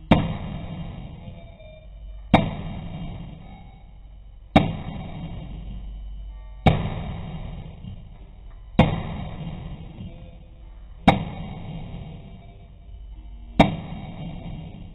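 Heavy hammer blows on the pickup's front suspension while working the control arm bushings: seven sharp strikes about two seconds apart, each ringing down slowly. The whole sound is dull, with no high end.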